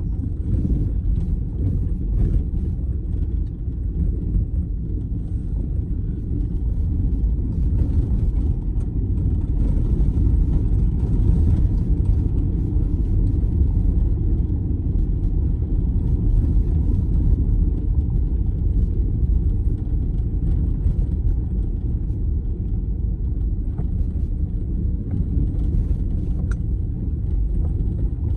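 Car driving on a gravel road, heard from inside the cabin: a steady low rumble of tyres on gravel and road noise, with faint scattered ticks.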